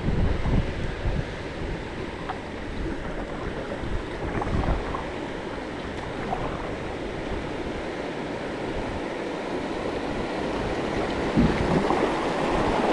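Rushing river water as a kayak runs a shallow rapid, with wind buffeting the microphone.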